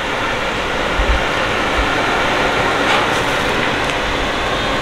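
Steady rushing background noise of a busy street, with two short low thumps about one second and nearly two seconds in.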